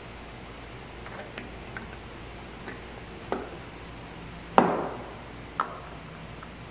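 Screwdriver clicking and tapping against the terminal screws of a lamp holder as a wire is fastened: a few scattered light clicks, then a sharper knock with a short ring a little past the middle, and one more click after it.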